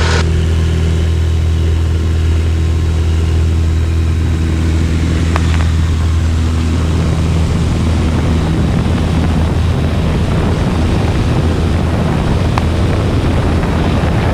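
Piper PA-28-236 Dakota's engine and propeller at full takeoff power, a steady loud drone heard from inside the cabin on the takeoff roll and initial climb.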